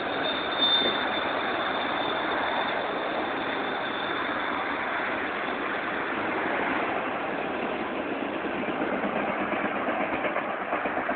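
Freight train cars rolling past: a steady rush of steel wheels on rail, with a thin high squeal in the first few seconds that fades.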